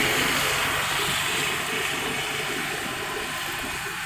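Steady engine and road noise heard from inside a small Hyundai hatchback as it is driven along a city road.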